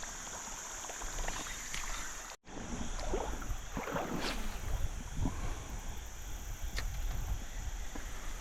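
Water sloshing and splashing in a shallow creek, with a few short splashes. The sound drops out for an instant about two and a half seconds in.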